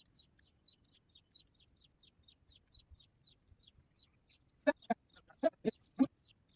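Birds calling: a steady series of high, short downward chirps about four a second, then, about two-thirds of the way in, five or six loud, short clucking calls in quick succession.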